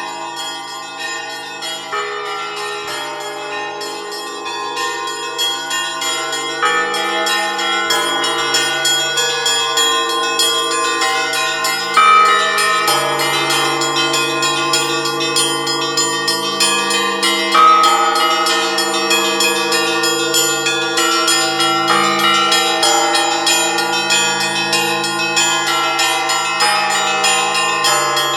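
Several bells of an Orthodox monastery bell tower rung together in a fast, continuous peal: small bells chiming rapidly over the ringing of larger ones. It grows louder over the first several seconds, with two heavy strokes about twelve and seventeen seconds in.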